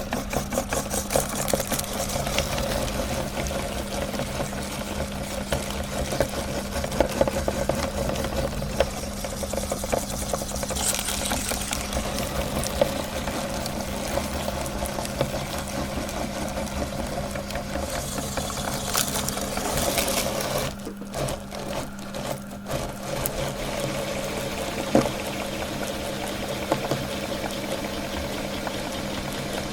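Electric meat grinder running with a steady motor hum while its auger grinds through mini ice creams, giving a dense crackling and squishing. The sound drops out briefly a few times about two-thirds of the way through.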